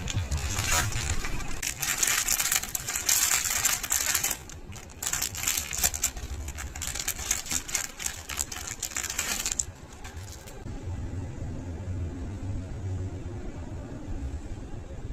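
Small hard items clinking and rattling with packaging rustling as they are handled, for about the first ten seconds; after that, a quieter low rumble.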